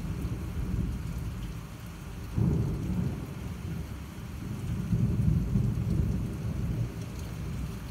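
Thunder over heavy rain: a sudden low clap about two and a half seconds in, then a long rumble that swells and fades, with the steady hiss of a downpour throughout.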